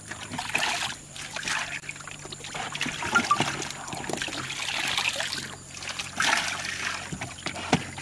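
Water sloshing and splashing in a tank as a plastic colander is dipped in and lifted out with crucian carp, water trickling back through its holes, with a few knocks against the plastic.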